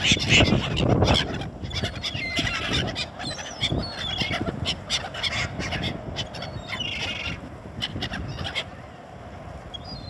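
A flock of gulls calling overhead, with a busy flutter of wingbeats from gulls and pigeons taking off and landing close by. The calls and flapping thin out near the end.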